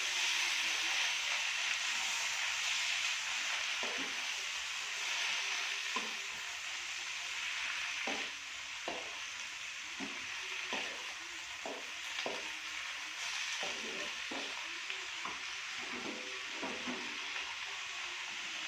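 Vegetables sizzling in hot oil in a pan as they are stir-fried, with a spatula scraping and knocking against the pan now and then from about four seconds in.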